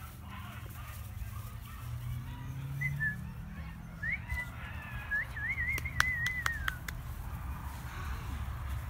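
A person whistling a thin, high, wavering tone with a quick trill, from about three seconds in to about seven. A few sharp clicks come near its end.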